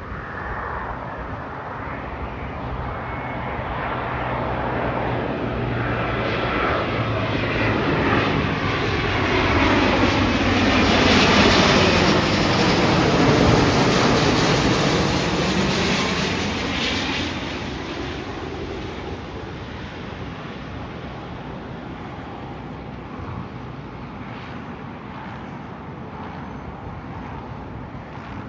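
Jet airliner passing close by, its engine noise swelling to loudest about halfway through and then fading away, with the pitch sweeping down as it goes past.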